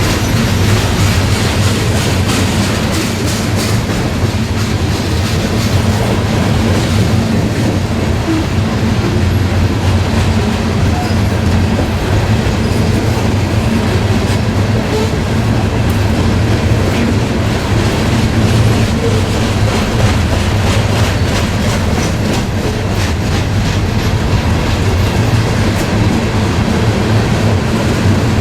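Railcars of a passing train rolling by steadily, the wheels clicking over the rail joints in a repeating clickety-clack over a constant low rumble.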